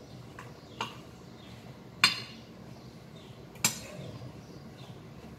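A metal utensil clinking against a white ceramic baking dish while tossing sliced jiló with flour and salt: four sharp clinks, the loudest about two seconds in.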